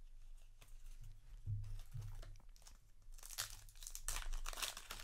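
Foil wrapper of a Yu-Gi-Oh! booster pack being handled, torn open and crinkled. A few soft bumps come first, then dense, loud crinkling from about three seconds in.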